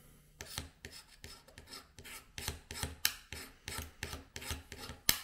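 Hobby knife scraping along a small weathered metal model rail in quick repeated strokes, about three or four a second, starting about half a second in: scraping the weathering off the rail's underside so that it will take solder.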